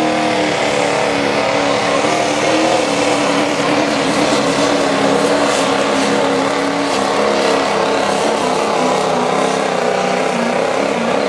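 Diesel four-wheel-drive pickup pulling truck running loud and hard under load as it drags a weight-transfer sled, black smoke pouring from its stack. The engine note holds steady, wavering slightly in pitch.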